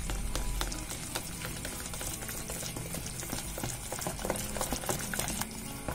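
Silicone-coated whisk beating yogurt, flour and egg in a bowl: a fast, uneven run of wet slapping and clicking strokes as the thick mixture is whisked smooth.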